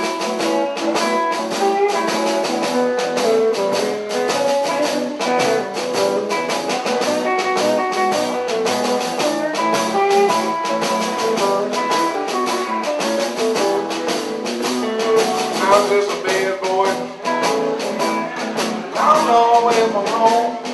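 Live blues played on guitar: picked single-note lines over a steady, even rhythm, with no singing.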